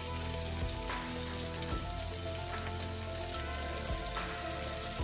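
Sausage links, tomato and celery sizzling steadily in a frying pan as diced bell pepper is sprinkled in.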